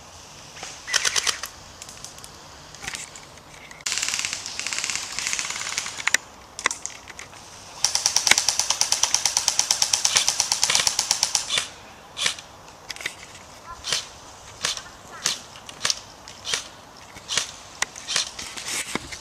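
Airsoft electric guns firing: a short burst about a second in, a longer full-auto burst around four seconds in, and a rapid full-auto burst of about three and a half seconds from about eight seconds, followed by single semi-auto shots about every two-thirds of a second.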